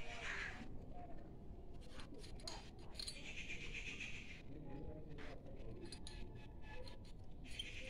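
Faint scattered clicks and clinks as a small brass bottle is handled and tipped over dry leaves in a clay mud stove.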